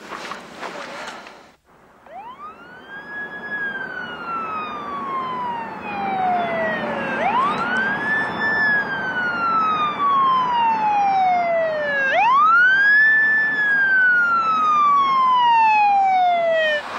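Police car siren wailing, starting about two seconds in: three slow cycles, each a quick rise in pitch and a long fall, getting louder as it closes in.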